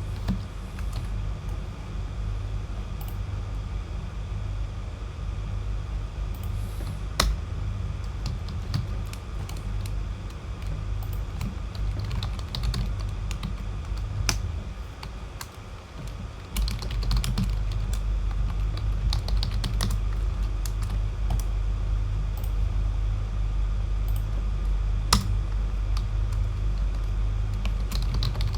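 Typing on a computer keyboard: irregular keystrokes and clicks over a steady low hum, which gets louder a little past halfway.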